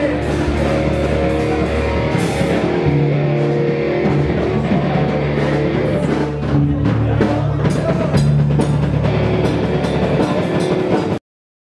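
Rock band playing live: electric guitar, bass and drum kit. The sound cuts off suddenly near the end.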